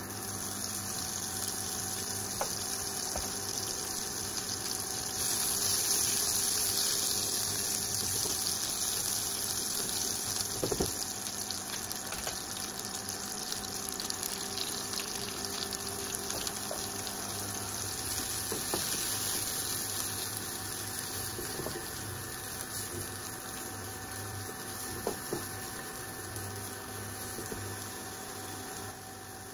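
Butter, then baby corn and sliced mushrooms, sizzling in a nonstick frying pan: a steady frying hiss that grows a little louder about five seconds in, with a few light taps of a silicone spatula against the pan.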